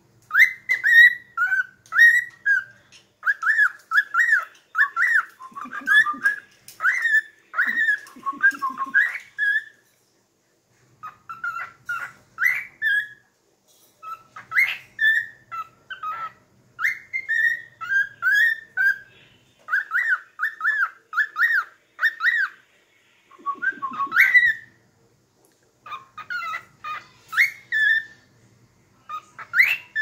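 Lutino cockatiel whistling a song: phrases of quick notes that sweep up and down in pitch, with short pauses between phrases and a few low stuttering notes mixed in. The tune is mimicry, picked up from often hearing its companions sing.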